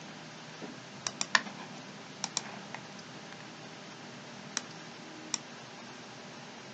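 Computer mouse clicking: about eight short, sharp clicks, some in quick pairs, spaced irregularly over a faint steady hiss.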